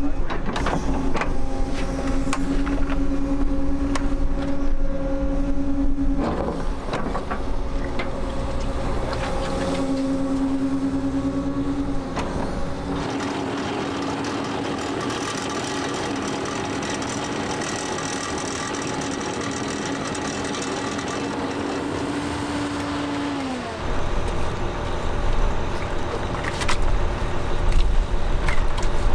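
Heavy diesel digging machinery working a drainage-tile trench: a steady engine drone that shifts pitch briefly about six seconds in and drops away about 24 seconds in, with scattered knocks.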